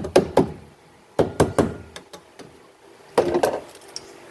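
Hammer tapping wire mesh down into a rusted-out gap at a car's rear shock mount: sharp knocks in quick runs of about five a second, with pauses of most of a second between the runs.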